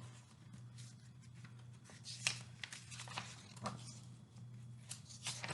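Faint paper rustling and a few soft clicks as a picture book is handled and its pages turned, over a low steady hum.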